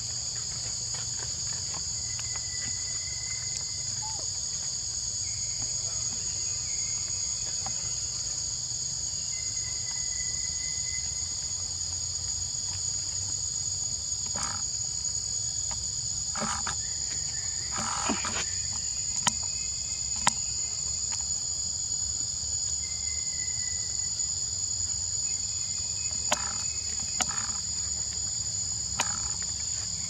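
Insects droning steadily, a continuous high buzz at two pitches, with scattered short clicks and knocks in the second half.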